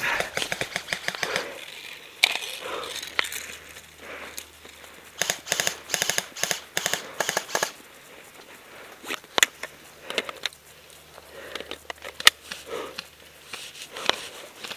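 Airsoft electric guns firing in rapid full-auto bursts, a fast clatter of sharp snaps. The longest burst runs for about two and a half seconds in the middle, and a few single shots follow near the end. Dry grass and brush rustle as the player moves through it.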